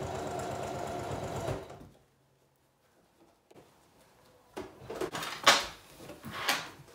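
Singer Heavy Duty electric sewing machine stitching through a denim vest at a steady fast rate, stopping about a second and a half in. After a short pause come a few sharp rustles and knocks as the heavy vest is shifted and pulled around the machine.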